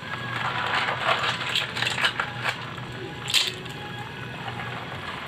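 Irregular clicking and crackling from a pan of freshwater snails cooking in coconut milk, the shells ticking against one another and the aluminium pan, with one sharper click a little after three seconds.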